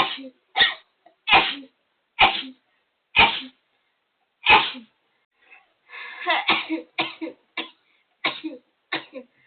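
A person in a sneezing fit, sneezing over and over in sharp, explosive bursts about a second apart, with a denser run of quick sneezes about halfway through.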